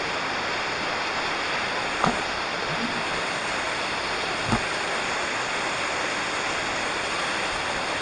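Waterfall rushing steadily in a gorge, with two brief knocks, one about two seconds in and one about halfway through.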